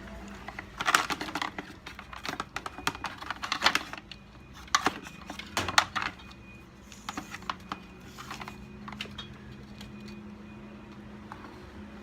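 Plastic parts of a Henry vacuum cleaner being handled and fitted during repair: a run of light clicks, taps and knocks, thinning out to a few faint clicks after about six seconds, over a faint low hum.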